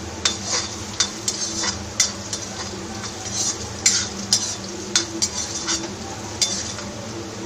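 A spoon stirring onions and capsicum with spices frying in a pan, scraping and clinking against the pan two or three times a second, with a sizzle and a steady low hum underneath.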